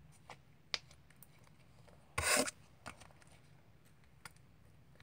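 Handling of a plastic dessert container holding slime: a few faint clicks and one short, loud rasping scrape about two seconds in, as the lid is worked shut.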